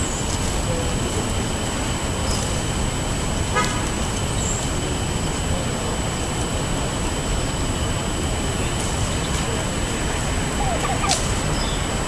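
Steady rumble of distant road traffic, with a couple of short sharp clicks.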